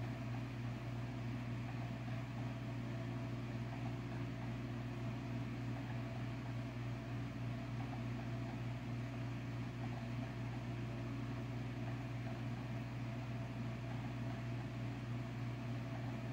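Steady low hum with a faint even hiss over it, unchanging throughout.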